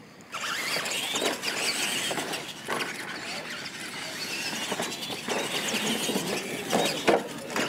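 Two radio-controlled monster trucks launching and racing on a dirt track: motors and gears whining and tyres scrabbling on the dirt, starting suddenly about a third of a second in, with a few sharp knocks along the way.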